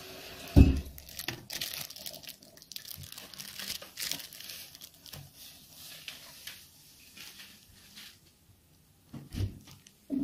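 Clear plastic packaging bag crinkling as it is handled and turned over, with a heavy thump about half a second in and another near the end.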